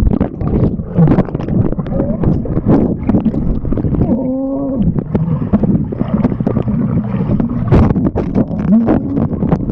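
Churning water and bubbles heard through a camera microphone held underwater in a swimming pool: a dense, muffled rumble full of small knocks and crackles. A muffled voice comes through the water about four seconds in.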